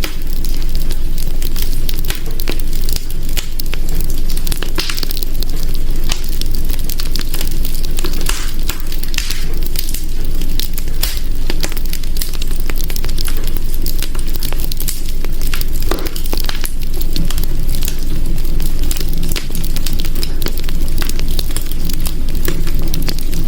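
Wood fire crackling in a hearth: a constant rush with many irregular sharp pops and snaps.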